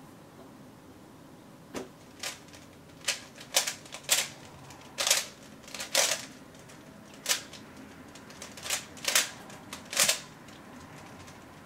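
A 3x3 speed cube being turned fast by hand: quick irregular clicks and short rattling clusters of clicks as the layers snap round, starting about two seconds in and stopping about ten seconds in.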